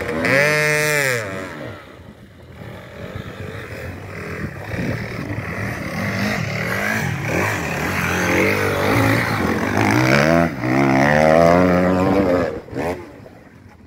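Off-road engines revving up and down: a sharp rise and fall of revs at the start, then more rising and falling revs over the second half before the sound drops away near the end.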